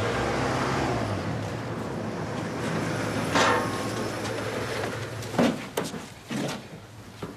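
A motor vehicle's engine running steadily, with a short higher-pitched sound about halfway through and a few knocks near the end.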